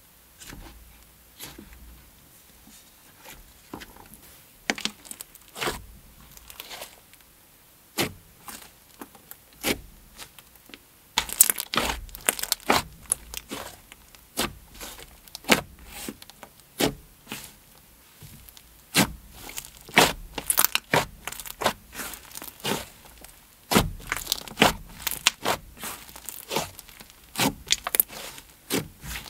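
Thick, glossy butter slime with soft clay mixed in, being squished, poked and stretched by hand: sharp bubble pops and sticky clicks, sparse and faint at first, coming thicker and louder from about eleven seconds in.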